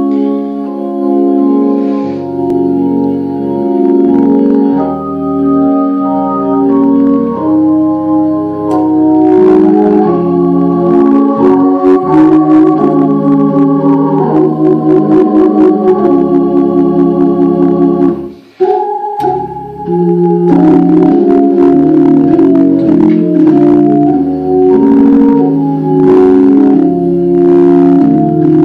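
Hammond console organ played in held chords over a low bass line, the chords changing every second or so. The sound breaks off briefly about two-thirds of the way through, then the playing resumes.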